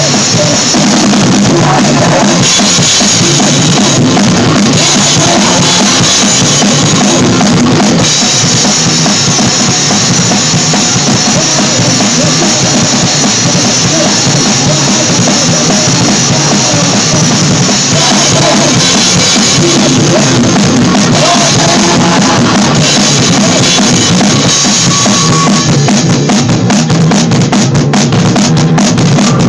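A band playing loud and without a break, heard from right beside the drum kit: bass drum, snare and cymbals at the front, with guitar underneath.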